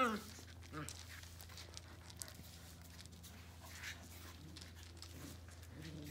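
Eight-week-old Brittany puppies at play: a wavering cry trails off at the very start, then a few faint short yips and scuffling sounds.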